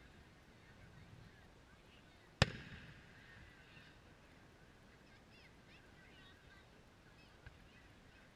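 A single sharp bang from a distant aerial firework shell bursting, about two and a half seconds in, with a short echoing tail. A much fainter pop comes near the end.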